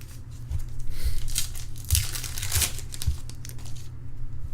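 Trading card pack wrapper crinkling and tearing as a pack is opened, in a few short bursts.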